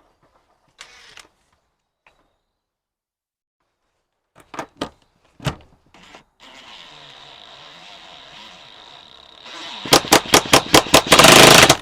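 A cordless power driver drives in the screw holding an amplifier's ground wire to the vehicle body. First come a few handling clicks. Then the motor whirs steadily for about three seconds and ends in a burst of loud, rapid hammering and rattling as the screw seats tight.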